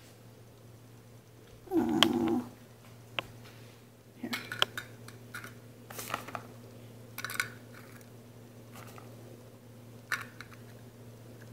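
Dried cranberries being handled into a small plastic cup from a plastic bag: scattered light clicks and crinkly rustles over a steady low hum. A short, loud pitched sound comes about two seconds in.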